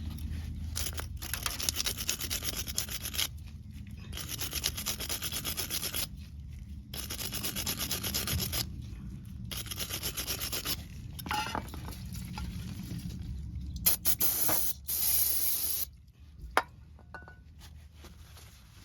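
Repeated bouts of hand scrubbing on rusty metal of the rear brake caliper bracket, a rapid rasping lasting a second or two at a time with short pauses between, cleaning off rust before the pad hardware goes on.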